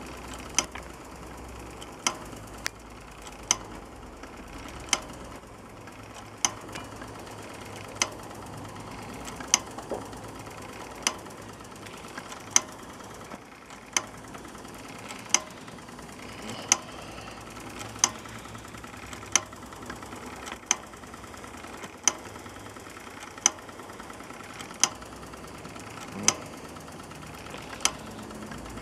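Tinplate Doll toy blacksmith's hammer striking the metal anvil in an even beat, about once every second and a half, while the Doll 304/2 live-steam engine driving it runs steadily underneath.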